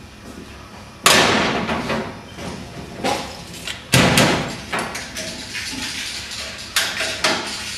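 Knocks and thumps on a sheet-metal battery tray panel as it is worked tight into position in a car's engine bay: about five sharp hits, the loudest about a second in with a brief metallic ring, and smaller clicks and rattles between.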